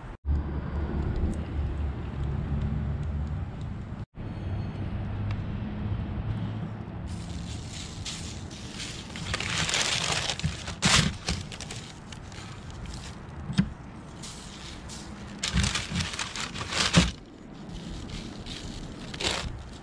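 Baking paper crinkling and rustling in repeated bursts as hands open it and handle the risen bread dough lined inside a bowl. A steady low rumble fills the first several seconds.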